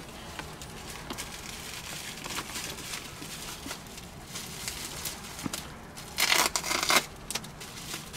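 Clear plastic wrapping crinkling and rustling as a small packed item is unwrapped by hand, with a louder burst of crinkling about six seconds in.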